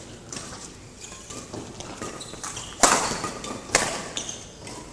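Badminton rackets striking a shuttlecock in a doubles rally, echoing in a large hall: two sharp hits a little under a second apart in the middle, with fainter taps before them.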